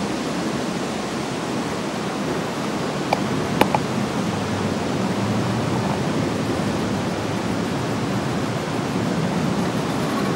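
A motor launch under way inside a concrete tunnel: a steady, even rushing noise of its motor and the water along the hull, with a few sharp clicks a little over three seconds in.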